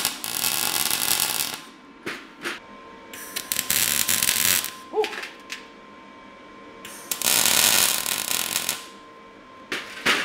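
Wire-feed (MIG) welder arc crackling and sizzling in about five short bursts, each a second or two long with pauses between, as steel parts are tack-welded.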